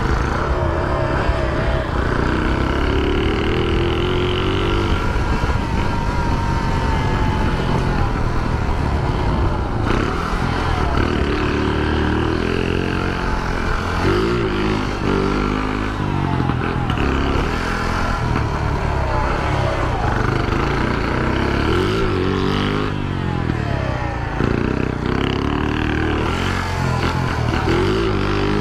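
Shineray 49cc moped engine running while being ridden, its pitch rising and falling again and again as the throttle is opened and eased. The engine is making the strange noise that worries its owner.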